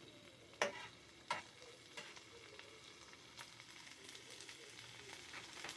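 Bacon and eggs frying in a three-section frying pan: a faint steady sizzle, with a few sharp clicks, the two clearest within the first second and a half.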